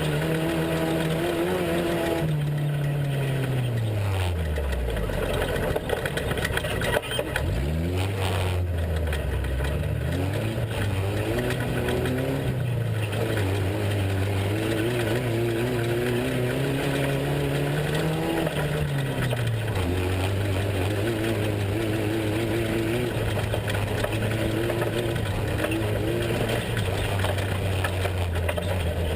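Off-road race truck's engine running, its revs dropping almost to idle about two to five seconds in and picking back up around seven seconds, then holding fairly steady apart from a brief rise and fall a little past the middle. A couple of sharp knocks come around six to seven seconds in.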